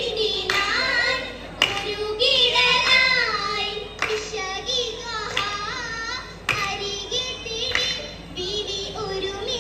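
Girls singing an oppana song, a Mappila folk song, in chorus, with sharp hand claps from the dancers every few seconds.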